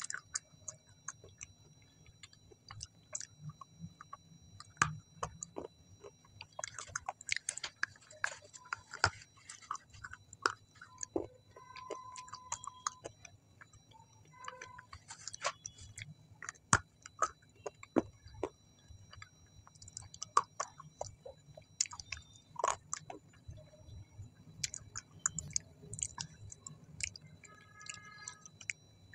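Close-miked chewing, with irregular wet mouth clicks and smacks as food is chewed.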